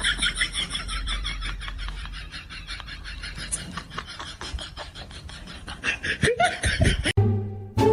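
A person laughing hard in a long, rapid run of pulses that cuts off suddenly near the end.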